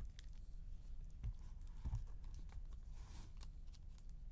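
Scattered light clicks and taps, with soft thumps about one and two seconds in: handling noises.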